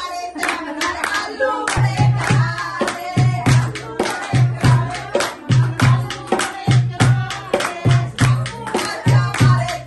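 A group of women singing together to a dholak, with hand clapping. The dholak's deep bass head comes in strongly about two seconds in, beating in close pairs about once a second under sharp treble strokes and claps.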